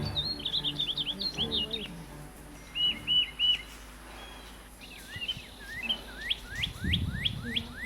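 Small birds chirping: quick twittering notes, a short run of repeated notes about three seconds in, and a series of quick rising whistles near the end.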